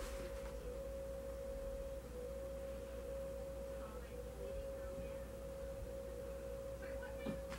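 A steady single-pitched background whine with a low hum beneath it, unchanging throughout.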